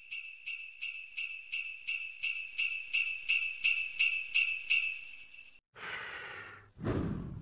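Sleigh bells shaken in a steady rhythm, about three jingles a second, growing louder and then fading out a little past halfway. A swish sweeping down in pitch follows, then a low whoosh near the end.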